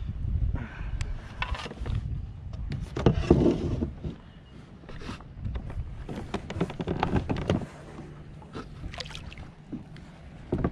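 Irregular knocks and clatter of handling on a plastic fishing kayak, loudest about three seconds in.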